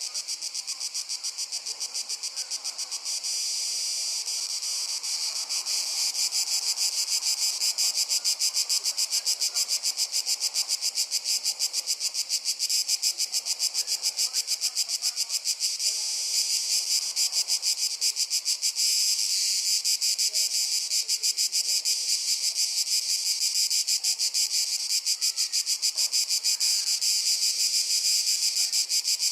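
Crickets chirping in a dense chorus with a fast, regular pulse, growing louder over the first few seconds and then holding steady.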